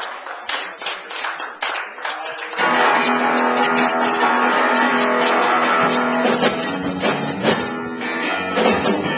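Small rock band playing live with electric guitars, bass and keyboard: a few short, sharp hits, then about two and a half seconds in the full band comes in with a long, ringing chord.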